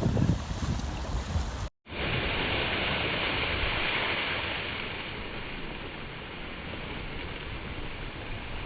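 Sea waves surging and washing in, a loud rush of water, with wind buffeting the phone's microphone at first. About two seconds in it cuts abruptly to a steadier, duller wash of surf.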